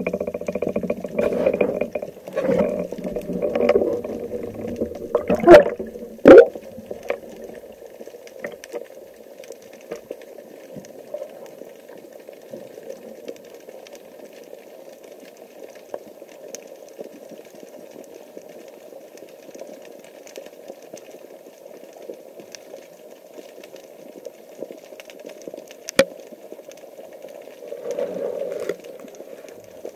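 Underwater sound picked up by a camera mounted on a speargun. Rubbing and knocking handling noise comes first, with two loud sharp knocks about five and a half and six and a half seconds in. After that comes a steady low rush of water with faint scattered ticks, a single sharp click near the end, and busier sound again in the last couple of seconds.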